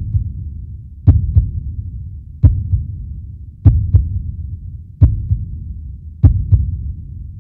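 Heartbeat sound effect: slow double thumps, lub-dub, one pair about every second and a quarter, with a low rumble between beats.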